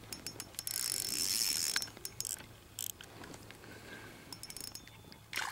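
Spinning reel being cranked to bring in a hooked fish, its gears clicking and whirring busily for the first two seconds, then only a few scattered clicks.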